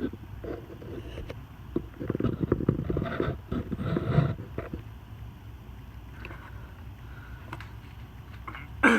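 Handling noise: scattered knocks and clicks, with a longer stretch of rustling and clattering about two to four seconds in, over a steady low hum.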